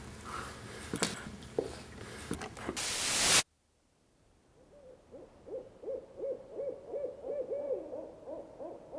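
A few knocks and a swelling hiss cut off abruptly, then after a short silence an owl hoots in a quick series of short rising-and-falling hoots, about three a second.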